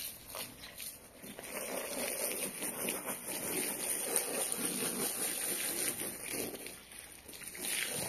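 Water from a garden hose splashing onto the back of a rug as it is rinsed. It starts in earnest about a second and a half in and slackens briefly near the end.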